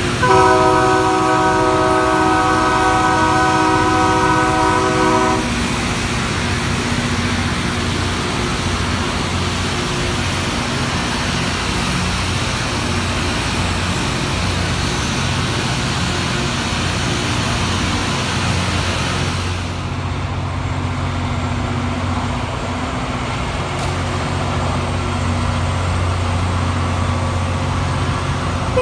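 Loram rail grinder train passing with its grinding stones working the rails: a steady grinding noise under a multi-note train horn that blows for about the first five seconds. About two-thirds of the way through the grinding noise falls away, leaving the low diesel rumble of a passing power car.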